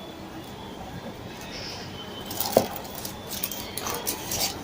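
Light clinks and clicks of small hard items being handled and knocked together, the sharpest about halfway through and a few more near the end.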